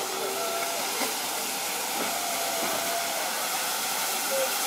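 Narrow-gauge steam locomotive approaching slowly, with a steady hiss of steam.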